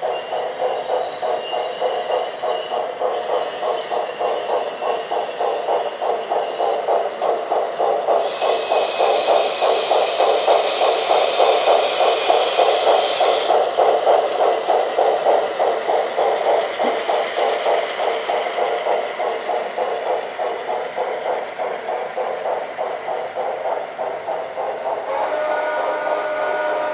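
Model steam locomotive running around a layout: a steady rhythmic clatter of the train on the track, with a loud hiss for about five seconds in the middle and a pitched, whistle-like chord starting near the end.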